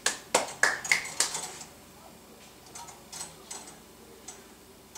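Doorway baby bouncer clicking and creaking as the baby bounces in it: a quick run of sharp clicks in the first second and a half, then a few fainter ones.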